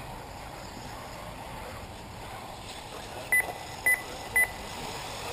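Three short, loud electronic beeps about half a second apart, from a race timing system, over steady background noise; they begin about three seconds in.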